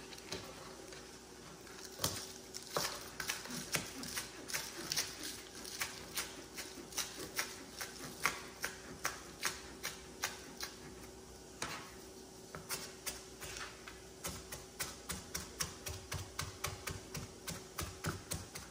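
Chef's knife chopping scallions on a plastic cutting board: a steady run of sharp knife taps, a few a second, starting about two seconds in.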